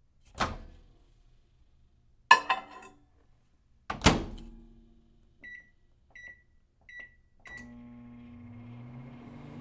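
Microwave oven being operated: a clunk, a rattling clatter and a loud thud as its door is handled and shut, then three short keypad beeps. The oven then starts and runs with a steady hum that rises slightly in pitch about a second after it starts.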